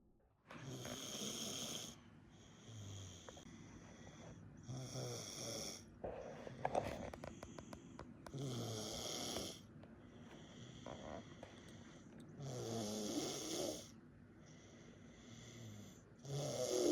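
A baby snoring in sleep. A loud snoring breath comes about every four seconds, each followed by a quieter breath, and the snoring starts about half a second in.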